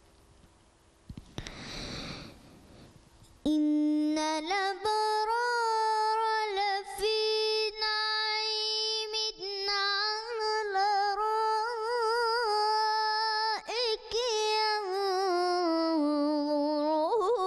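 A boy reciting the Quran in the melodic mujawwad style, holding one long drawn-out vowel that starts about three and a half seconds in, its pitch wavering in quick ornamental turns.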